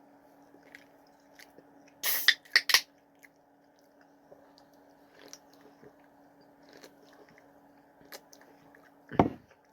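A person chewing a bite of Maple Bourbon BBQ Whopper topped with crispy onions and jalapeño strips: a few loud crunches about two seconds in, then quieter chewing, with a low thump near the end.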